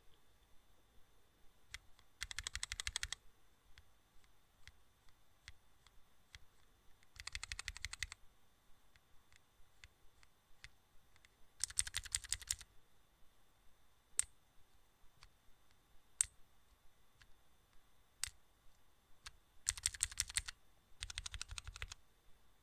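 Rapid, evenly spaced clicking in short bursts of about a second each, five times, with single sharp clicks between the bursts.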